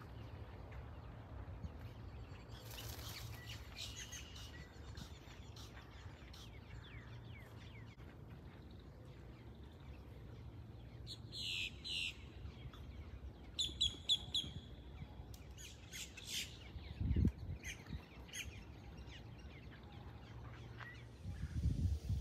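Small birds chirping: short high calls in clusters in the second half, over a low steady rumble, with a dull low thump later on.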